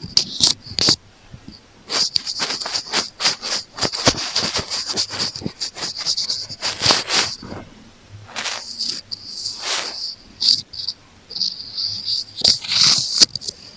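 Close-miked scratching and tapping on an earphone, ASMR ear-cleaning sounds: dense crackly scraping and quick clicks in irregular bursts, with short pauses a little past the middle.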